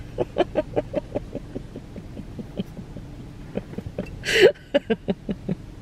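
A woman laughing: a run of short, quiet chuckles, then a louder, breathy burst of laughter about four seconds in, trailing off into a few more chuckles.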